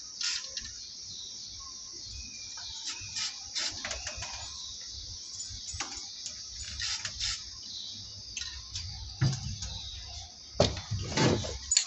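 Aerosol spray paint can hissing in many short bursts as white paint is sprayed along a paper edge. Louder knocks and rattling near the end.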